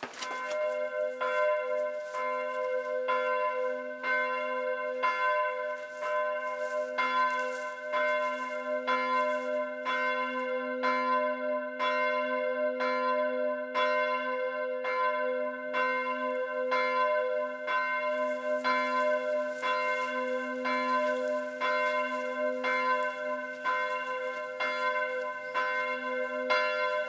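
A church bell tolling for a funeral: evenly spaced strikes, a little under two a second, over a steady ringing hum that carries on between them.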